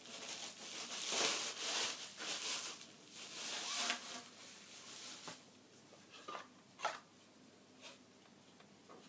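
Clear plastic wrapping rustling and crinkling as it is pulled off a shotgun barrel, loudest in the first four seconds, followed by a few light knocks.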